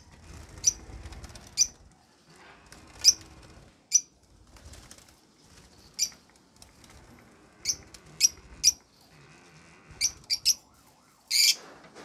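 Caged lovebirds giving about a dozen short, shrill chirps at irregular intervals, with wings flapping as a bird flies about the cage.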